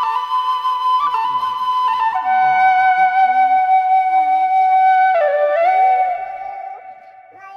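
Background music of a flute playing long held notes that step down in pitch, fading out near the end.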